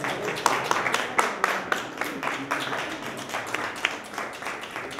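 Audience applauding, densest in the first couple of seconds, then thinning out.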